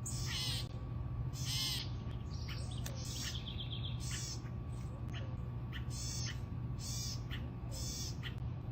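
An animal calling over and over in short, high, rasping calls about once a second, with a quick run of chirps about three seconds in, over a steady low hum.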